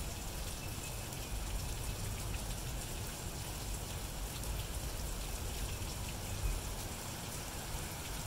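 Steady rain falling on grass and pavement: an even hiss with scattered drop ticks, over a low rumble.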